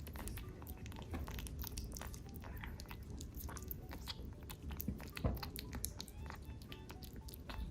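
Kitten eating, with a dense run of small irregular chewing and biting clicks.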